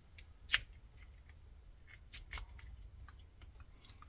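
Small sharp metallic clicks of a key and lock core being worked inside a Black Rhino padlock to free a core that is stuck. One loud click about half a second in, two more around two seconds in, with fainter ticks between.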